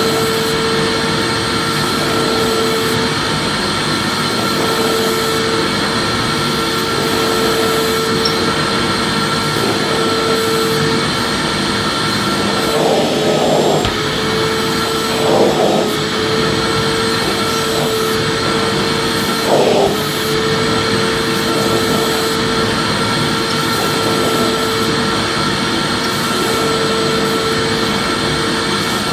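Vacuum cleaner running steadily, a constant rushing hiss with a steady whine, and a few brief louder blips around the middle.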